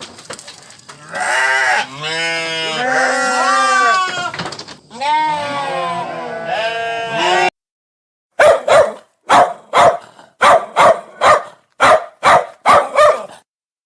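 Animal calls. First comes a long call with a wavering, bleating pitch that stops abruptly. After a short silence follows a run of about eleven short, sharp bark-like calls, roughly two a second.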